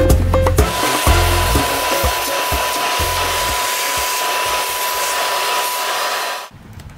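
Wet-and-dry shop vacuum running steadily with a thin whine while its hose sucks dirt off a bare steel vehicle floor pan; it cuts off suddenly near the end. Music with a beat plays over the first second or so.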